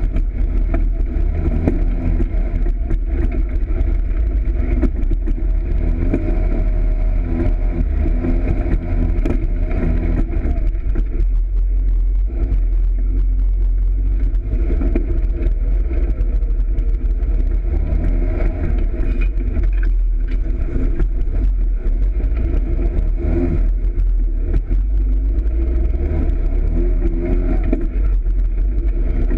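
Polaris RZR side-by-side's engine running under way, its pitch rising and falling again and again as the throttle is worked over rough dirt trail, over a heavy steady low rumble.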